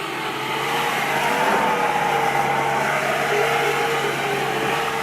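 A vehicle engine running hard at high revs. It grows louder over the first second, rises slightly in pitch about a second and a half in, then holds steady.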